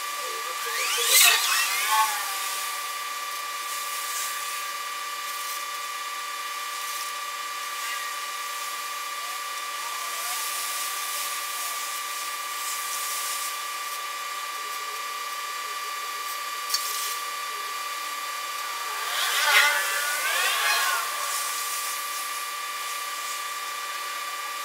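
Arc welding at a steel bench: a steady electrical hum and hiss, with two louder bursts of sweeping, whining pitches, one about a second in and one about two-thirds of the way through.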